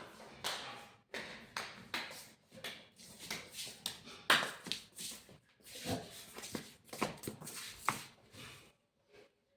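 A quick, irregular run of taps, clicks and rustles, some two dozen short sounds, a few with a brief squeaky tone in them.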